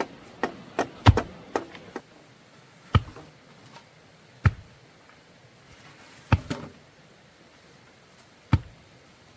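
Sharp knocks: a quick run of about five in the first two seconds, then single knocks every one and a half to two seconds.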